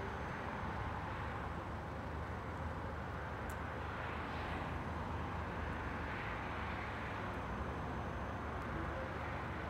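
Steady hum of road traffic, with a few gentle swells as vehicles pass.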